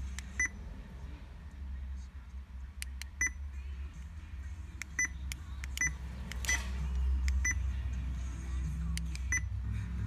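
Car stereo key beeps: about ten short, irregularly spaced electronic beeps as buttons on a wireless steering-wheel remote are pressed and the radio steps from station to station, over a steady low hum.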